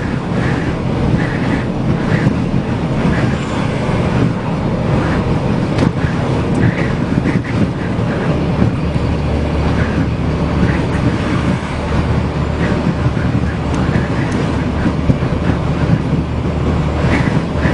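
Steady road and running noise of a vehicle in motion, with scattered light rattles and knocks, as picked up by a dashcam.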